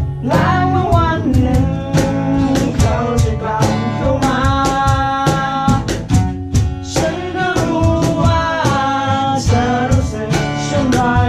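Music: a song with a singing voice over guitar and a steady drum beat.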